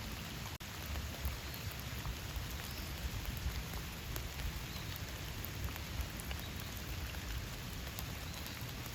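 Steady rain falling in a forest, with many separate drops ticking close by. The sound cuts out for an instant about half a second in.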